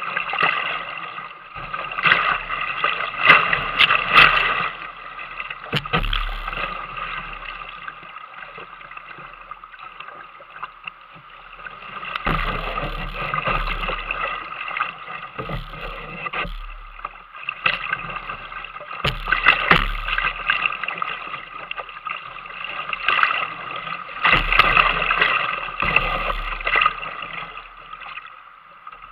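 Whitewater rushing and splashing around a kayak running a rapid, heard from the boat's deck, swelling into several loud surges of a few seconds each as waves break over the boat.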